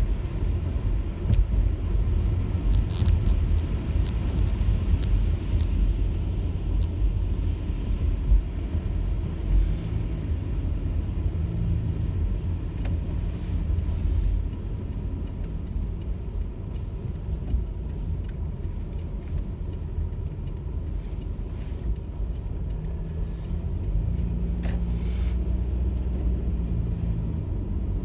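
A car driving, with a steady low rumble of engine and road noise. A cluster of light clicks comes a few seconds in.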